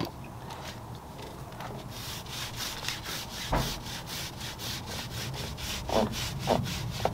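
A soft tyre dressing brush stroking over a car tyre's rubber sidewall as it spreads tyre dressing. From about two seconds in, the strokes come quick and even, about four a second.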